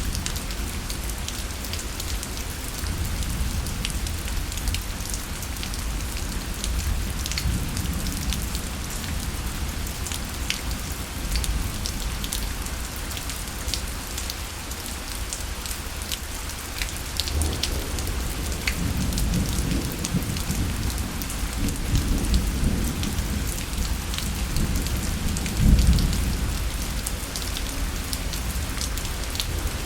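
Steady rain falling, with fine drop patter throughout, and low rolling thunder rumbling through the second half, loudest about 26 seconds in.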